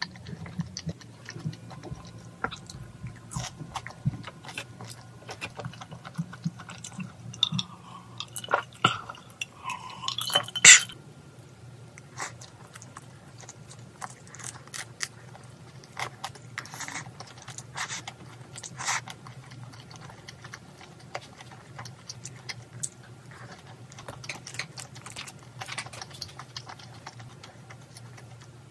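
Close-up eating sounds: wet chewing and mouth clicks as shrimp is eaten with chopsticks, repeated throughout, with one sharper, louder sound about ten seconds in.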